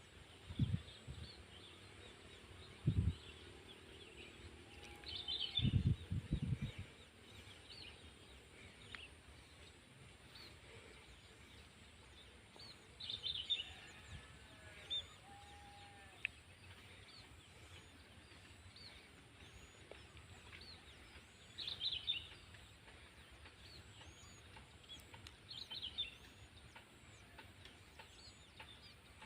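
Outdoor rice-field ambience with small birds giving short high chirps every few seconds and a few lower calls near the middle. A faint steady hiss underlies it, and three loud low rumbles come in the first several seconds.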